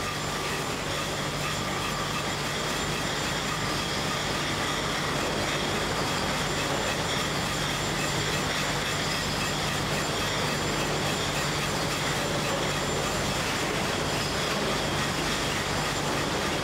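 Beer bottling line running: steady machine noise of glass bottles rattling and clattering along the conveyors, over a constant low hum.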